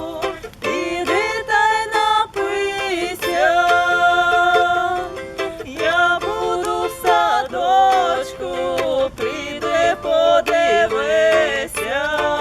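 Folk song played on a strummed, plucked string instrument, with singing voices.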